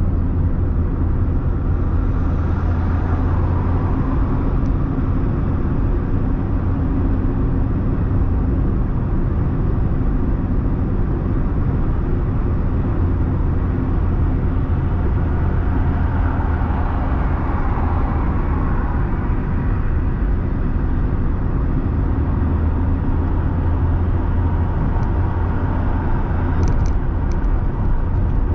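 Steady road and engine noise inside a moving car's cabin: a constant low rumble with an even hiss of tyres on asphalt, briefly fuller in the middle as another car passes alongside. A few faint ticks near the end.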